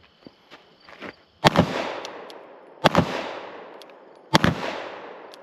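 Three single gunshots about a second and a half apart, each sharp crack trailing off in a long echo.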